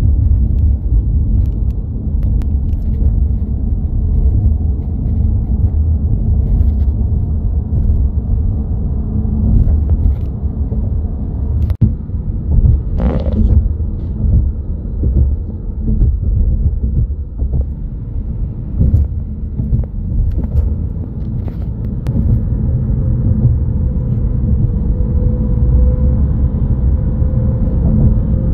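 Car driving at highway speed, heard from inside the cabin: a steady low road and engine rumble with a few small knocks, and a faint whine rising slowly over the last few seconds.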